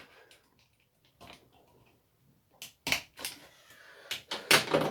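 Scattered sharp clicks and knocks from small parts and tools being handled, a few light ones at first, then a busier run of knocks in the second half, the loudest near the end.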